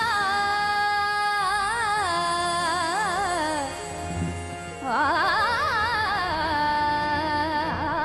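A woman's voice singing long, ornamented wordless phrases of a devotional bhajan's opening alaap, held notes bending and wavering, with a harmonium playing underneath. One phrase ends about four seconds in and a new one swells up about a second later.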